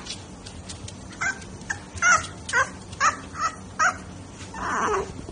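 Bulldog puppy yipping: a run of about seven short, high-pitched yaps over a few seconds, then a longer, rougher call that drops in pitch near the end.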